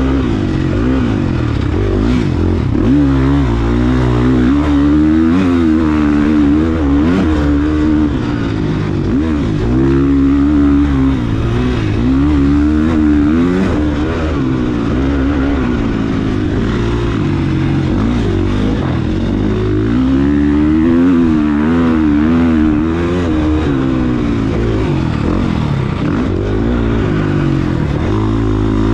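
KTM motocross bike's engine being ridden hard, its revs rising and falling over and over as the throttle is opened and shut, heard close from an on-bike camera.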